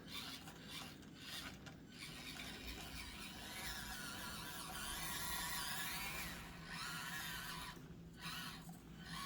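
Stock Axial SCX24 Deadbolt 1/24-scale micro crawler driving slowly: a faint small electric motor whine that wavers in pitch with the throttle, with scraping and rubbing as the truck crawls over the course.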